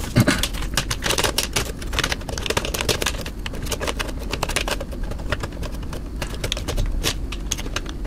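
Quick, irregular plastic clicks and rattles as cables and connectors are handled and pushed into place in a PC case's front panel.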